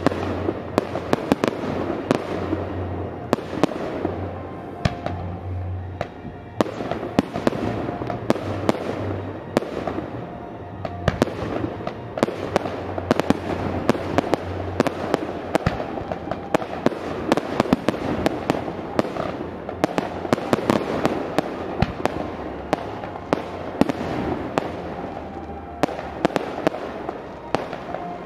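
Fireworks display: a dense, irregular stream of bangs and crackles from bursting aerial shells, with music playing underneath.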